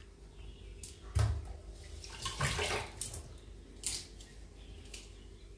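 A few brief knocks and short rustling or rushing sounds of kitchen handling, the loudest a knock about a second in, over a steady low hum.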